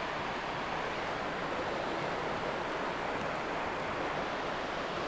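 Steady, even rush of flowing river water, with no distinct splashes or other events.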